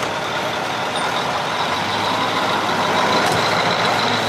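Heavy truck driving along a road: a steady drone of engine and road noise, with a thin high whine over it.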